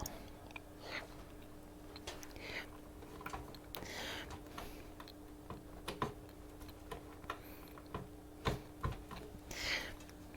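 Faint scattered clicks and rustling of small plastic cable connectors being handled and pushed onto motherboard header pins, with a few sharper clicks past the middle, over a steady low hum.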